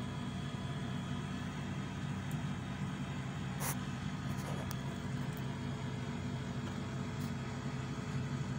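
Steady low mechanical hum with a few fainter steady tones above it, broken once by a brief sharp click about three and a half seconds in.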